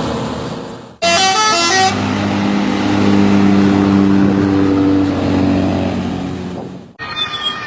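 Bus sounds: engine noise fading out, then a quick run of changing horn notes about a second in, followed by a long steady multi-note horn blast lasting about five seconds.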